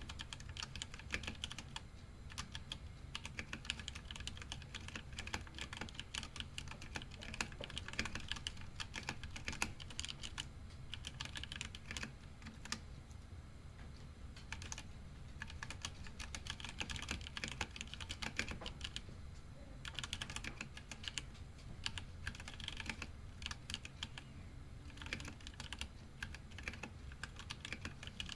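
Ducky One 2 Mini mechanical keyboard with Halo True tactile switches being typed on continuously: a fast, irregular stream of key clacks with brief pauses.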